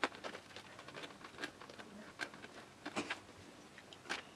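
Faint, scattered clicks and scrapes of a screwdriver and hands working at the screws of a stereo's fibreboard back panel.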